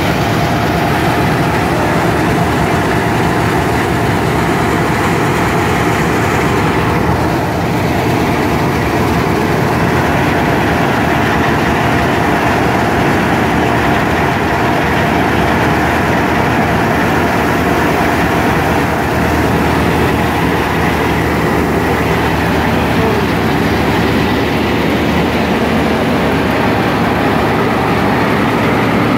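Tractor-driven wheat thresher running steadily while threshing, its drum and fans together with the tractor's engine making a loud, constant mechanical noise.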